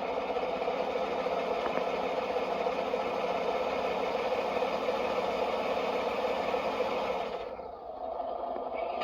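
Servonaut sound module in a LESU RC MAN dump truck playing a simulated truck engine, running steadily through the model's small speaker. About seven and a half seconds in, the sound dips briefly and its upper hiss drops away as the sound changes.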